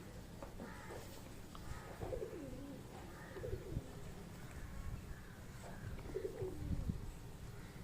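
Shih Tzu puppy making soft, low, whiny grumbles during play, several short drawn-out sounds that fall in pitch.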